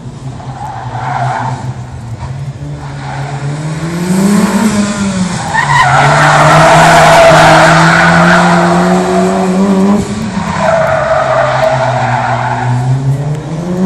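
Mitsubishi Lancer Evo IX's turbocharged four-cylinder engine revving up and down as the car slides through a slalom, its tyres squealing loudly through the middle and again near the end.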